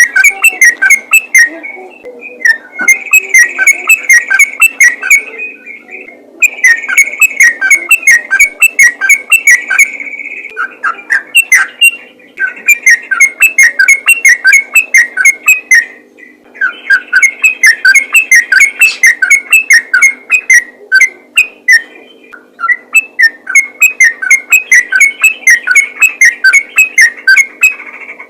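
Yellow-vented bulbul (trucukan) singing its rapid song: fast runs of chirpy notes in phrases of a few seconds, with short pauses between phrases.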